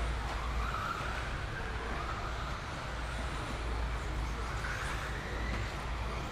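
Electric 4WD RC buggies with 13.5-turn brushless motors racing on a clay track: the motors' whine rises and falls in pitch as the cars accelerate and brake, with a climb about half a second in and another near five seconds in. Underneath runs a steady low rumble.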